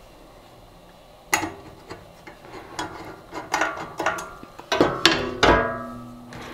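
Metal 3D-printer bed-mount bracket being handled and fitted to the Z carriage: scattered light clicks and knocks, then louder metal clanks about five seconds in that ring on briefly.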